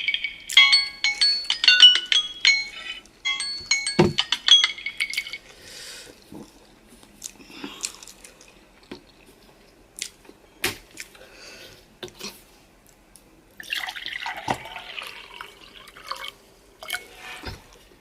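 Short plinking music for about five seconds, then close-miked eating sounds of noodles and chicken: scattered sharp mouth clicks and smacks, with a longer wet slurping stretch later on.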